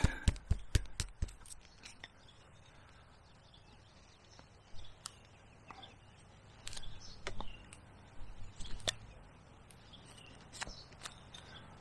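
Carving gouges worked into the wood of a living tree: a quick run of sharp taps in the first second or so, then scattered single clicks.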